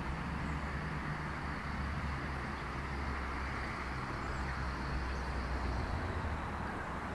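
Steady low rumble of distant road traffic with an even hiss over it, unbroken throughout.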